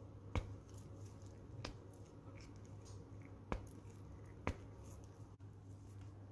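A thin wooden skewer being pushed through a peeled raw potato by hand, giving four short, sharp clicks a second or two apart over a faint low hum.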